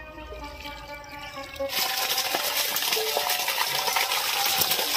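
Shallow muddy pond water splashing and sloshing while fish are handled in a net, starting suddenly under two seconds in, with scattered small clicks and knocks.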